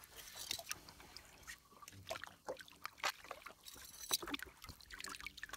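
Faint, scattered clicks and knocks with a little water trickling: handling noise in a small boat.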